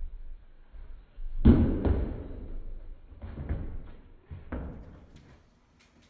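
Dull thumps of a toy poodle's paws on a carpet-runner hallway as it runs after a thrown slipper and grabs it. The loudest pair of thuds comes about one and a half seconds in, followed by a few softer ones that die away.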